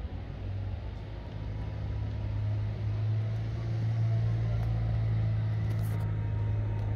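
Steady low hum of an engine or motor running at constant speed, growing louder about two to three seconds in.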